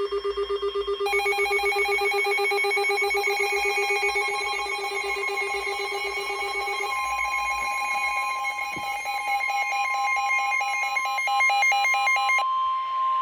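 Weather radio alert alarms: fast warbling electronic beeps, with a second, higher warble joining about a second in. About seven seconds in, a steady long tone, the NOAA Weather Radio warning alarm tone, starts and holds on while the warbling stops shortly before the end, announcing a warning broadcast.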